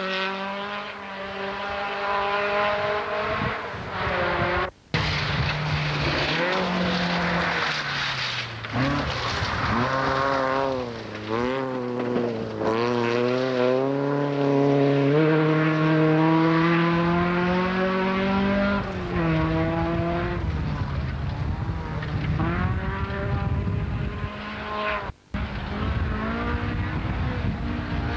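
Rally car engines revving hard and changing gear as cars pass on a gravel stage, the pitch climbing and dropping repeatedly. The sound cuts out suddenly for a moment twice, about five seconds in and near the end.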